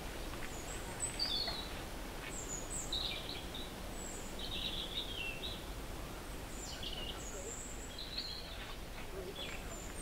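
Small birds chirping with short, high, scattered calls over a steady background hiss.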